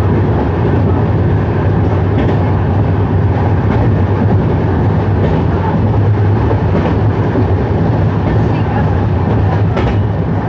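Indian Railways express train running at speed, heard from an open coach doorway: a loud, steady rumble of wheels on the track.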